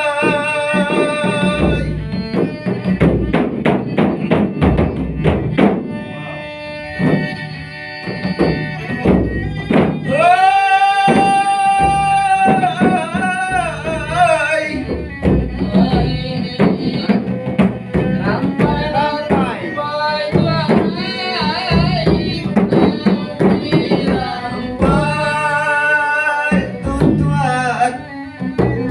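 A dendang folk song sung with long held, wavering notes over a steady beat of hand drums.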